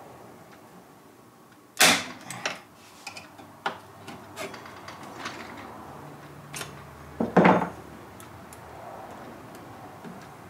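Hand pop-rivet gun being squeezed to set rivets through a rubber boot flange into a steel bracket: a run of sharp metallic clicks and snaps, the loudest about two seconds in and again about seven and a half seconds in, with lighter clicks and knocks between.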